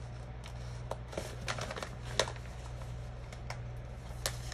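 Paper handling from planner stickers being peeled and sorted: scattered light ticks and rustles, about half a dozen, over a steady low hum.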